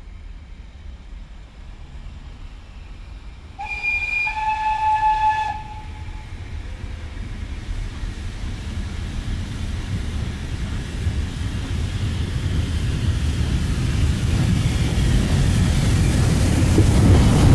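Steam locomotive No. 85, the GNR(I) V-class compound 4-4-0 Merlin, sounds its whistle once, for about two seconds, a few seconds in. Then the rumble of the locomotive and its train approaching grows steadily louder.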